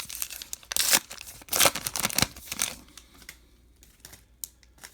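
A baseball card pack's wrapper being torn open with crinkling, in two loud bursts in the first three seconds, followed by faint light clicks as the cards are handled.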